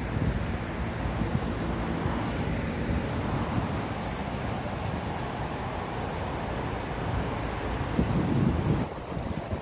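Sea waves washing in a steady rush, with wind buffeting the microphone; a louder rush comes near the end.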